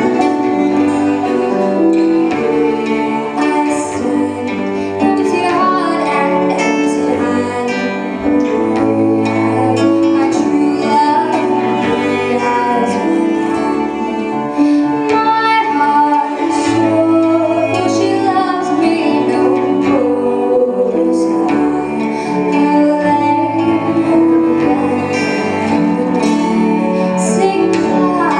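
A woman singing an English folk song with instrumental accompaniment of strings.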